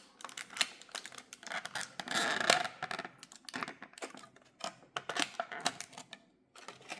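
Irregular small clicks and light rustling from a 1:64 diecast model truck being handled, with a louder rustle about two seconds in.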